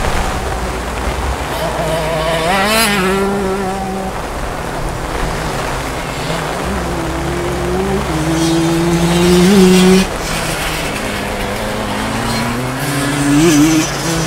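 Simson two-stroke 60 cc motocross moped engines revving up in rising whines three times, the loudest about two thirds of the way through and cutting off sharply, over a steady hiss of rain.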